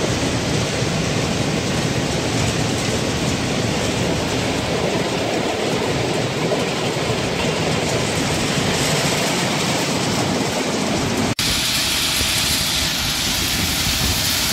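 Steady rushing noise of bulk pellets pouring from a hopper wagon's bottom outlet onto a running belt conveyor. About eleven seconds in it breaks off abruptly into a brighter, hissier noise of material running off the conveyor.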